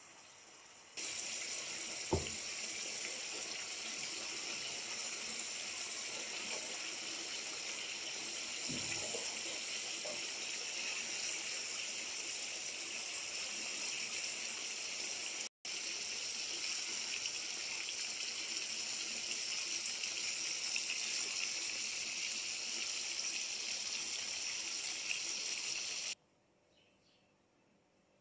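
Tomatoes and eggs sizzling in a frying pan: a steady high hiss that starts and stops abruptly, with a sharp knock about two seconds in.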